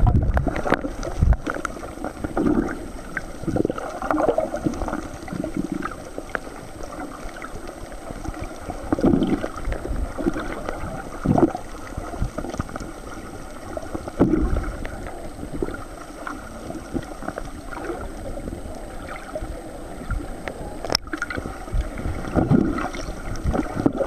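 Seawater heard through a camera held underwater: muffled gurgling and sloshing that swells and fades irregularly, with no clear pattern.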